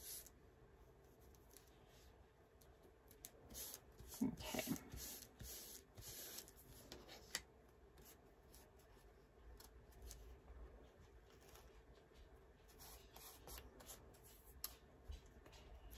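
Faint rustling and soft taps of paper card pieces being handled and pressed down on a craft desk, busiest a few seconds in.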